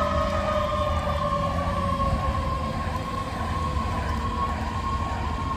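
Fire engine siren sounding a held tone that slowly falls in pitch, with a low rumble underneath; the lowest of its tones fades out about halfway through.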